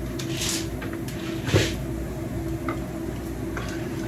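Dry soybeans poured from a jar into a wok: a short rustle, then a louder rattling clatter about one and a half seconds in. After that comes faint scraping as a wooden spatula stirs them.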